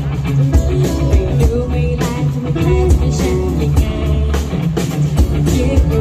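Live band music: electric guitars, bass and drum kit playing a pop-rock song, with a voice singing over it through the PA.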